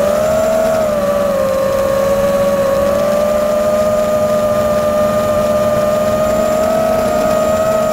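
FPV quadcopter's electric motors and propellers whining steadily in flight, heard close up from the drone's own onboard camera, the pitch wavering slightly with the throttle.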